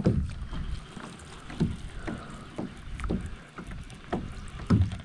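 Water slapping in irregular knocks against the hull of an anchored fishing boat, over a low rumble of wind.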